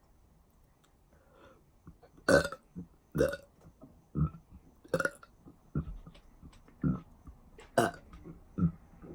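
A woman burping, a string of short burps coming roughly once a second from about two seconds in.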